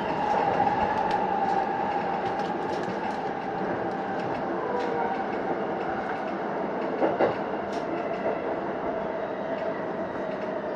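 Keihin-Tōhoku line electric commuter train running and slowing, its motor whine falling slowly in pitch over steady rolling noise. Wheels clack over rail joints, twice in quick succession about seven seconds in.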